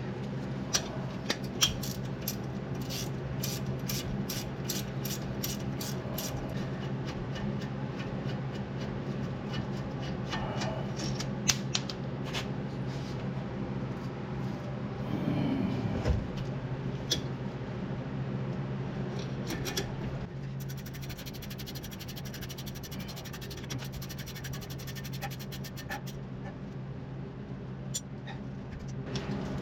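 Wrench clicking and metal clinking as the brake caliper bolts are worked loose, with a quick, even run of clicks near the end, over a steady low hum.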